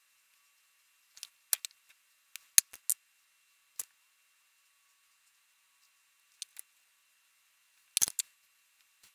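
Scattered sharp clicks and taps from handling things close to the microphone, coming a few at a time, with the loudest cluster about eight seconds in. Nothing is heard between them.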